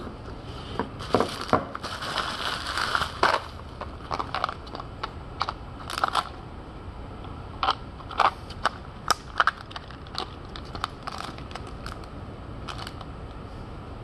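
Clear plastic case of drill bits being handled. There is a dense patch of clicking and rustling from about one to three and a half seconds in, then scattered sharp plastic clicks that thin out after about eleven seconds.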